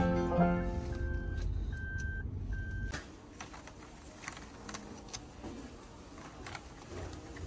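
Background music fading out, then three short electronic beeps at one steady pitch about a second apart, then faint background noise with scattered light clicks.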